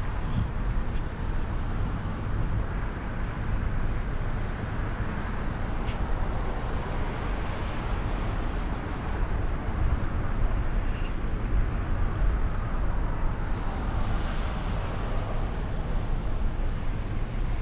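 A car driving along a snow-covered road, heard from inside the cabin: a steady low rumble of engine and tyre noise.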